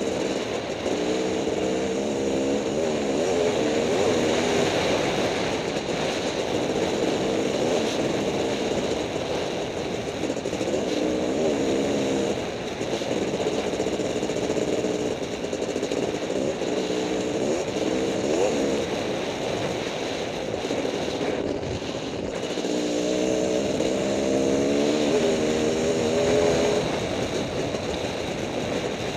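Honda CR500 two-stroke single-cylinder dirt bike engine running hard at speed, its pitch rising and falling as the rider works the throttle and gears, with a steady rush of wind noise over the helmet-mounted microphone.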